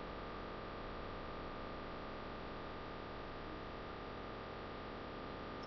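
Steady hiss of a recording's background noise with a thin, steady high whine running through it.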